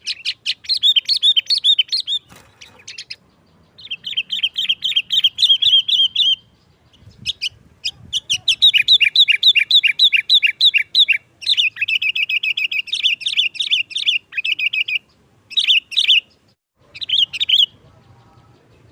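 Sooty-headed bulbul (kutilang) singing loudly in a series of phrases, each a fast run of repeated notes lasting up to about three seconds, with short pauses between them.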